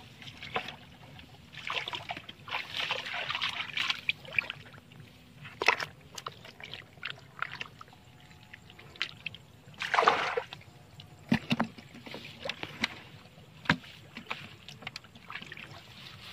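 Hands splashing and squelching in shallow muddy water while grabbing at a fish: irregular sloshing splashes, the biggest about 10 seconds in, with a few sharp clicks between them.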